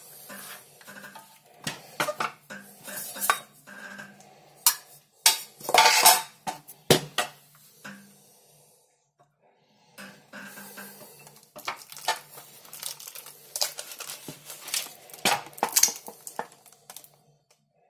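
Metal clattering, clicks and knocks as the RZBA-04-04M radiometer's metal case is opened and its wire-mesh detector panel is lifted out. The knocks come irregularly, with the loudest cluster in the middle and a short pause before more handling.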